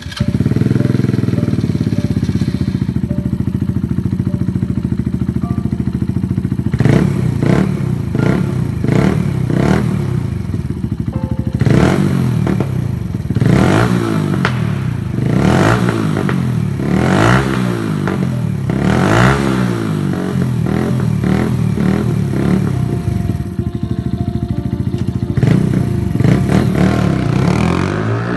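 MASH Black Seven 125's single-cylinder four-stroke engine, breathing through a new aftermarket exhaust, idling just after start-up. From about seven seconds in it is blipped again and again, each rev rising and dropping back to idle. Near the end the bike pulls away.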